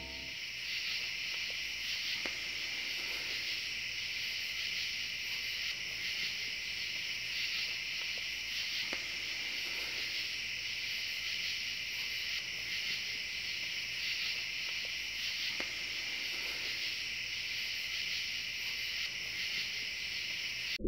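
Steady night-time chirping of crickets, a continuous high, faintly pulsing insect chorus.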